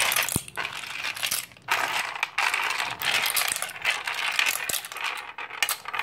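Blood cockles in their shells clattering as they are tipped and pushed off a plate into a clay mortar, shell knocking on shell and on the clay. It comes in several rattling rushes with brief pauses between them.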